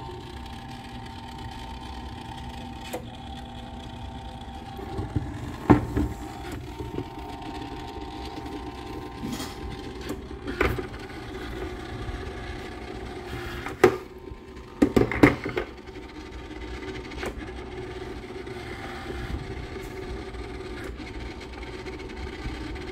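Unicolor Uniroller Model 352 motor base running with a steady hum, turning a Cibachrome processing drum on its rollers. Several sharp knocks and clunks stand out, a cluster of them about two-thirds of the way through.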